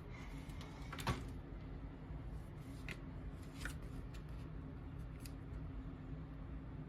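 Craft pieces being handled: one small click about a second in, then a few faint ticks and rustles over a steady low hum.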